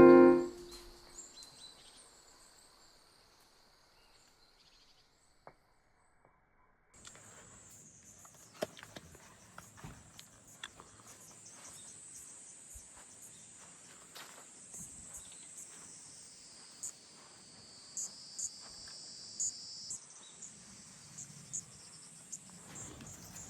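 Crickets chirping steadily in a high, continuous band, coming in about seven seconds in after a brief trail of music fades away, with scattered faint clicks over them.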